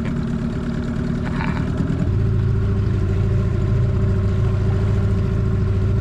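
Small outboard motor pushing an inflatable dinghy along at steady speed. Its note changes about two seconds in and then runs a little louder.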